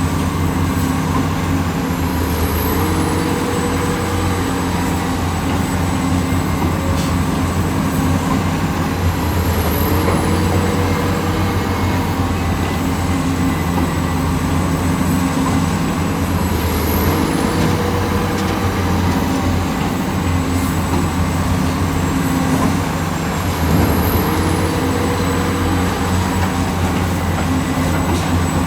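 Heavy diesel engine of earth-moving machinery running steadily under work. A pattern in the sound, including a brief high whistle, repeats about every seven seconds.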